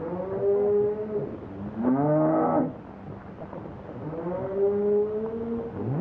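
Cattle mooing: four drawn-out calls in two pairs, each pair a long call rising in pitch followed by a shorter, stronger one. A steady low hum runs underneath.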